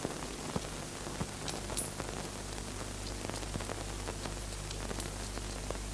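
Steady hiss and low mains hum of an old film soundtrack, with faint scattered crackling clicks.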